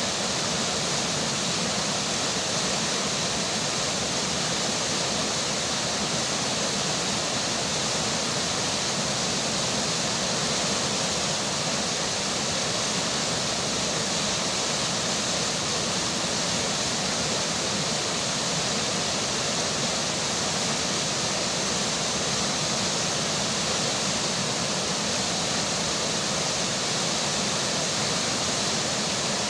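River water flowing with rain falling, a steady, unbroken rushing hiss.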